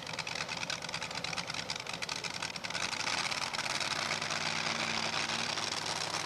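Pulling tractor's engine running with a rapid clatter, then growing louder about three seconds in and settling into a steady, stronger note as the tractor starts its pull.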